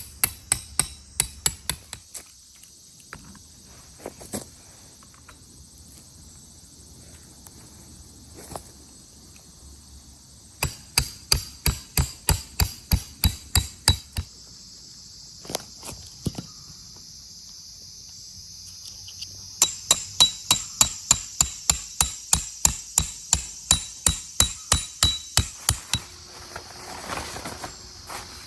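Tent pegs being hammered into the ground while a tarp is set up: three runs of sharp metallic strikes, about three to four a second, with pauses between. A steady high insect-like drone runs underneath.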